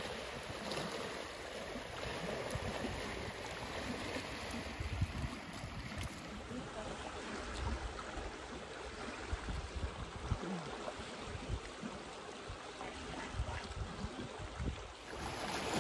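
Gusty wind buffeting the microphone in irregular low rumbles, over a steady wash of lake water lapping at the shore.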